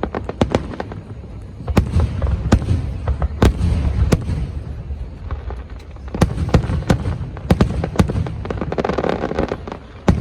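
Aerial fireworks going off in quick succession: many sharp bangs, some close together, over a steady low rumble.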